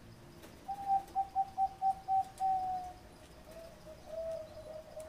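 Zebra dove cooing its song: a quick run of about seven short, even notes ending in a longer drawn-out note, followed by softer, lower coos.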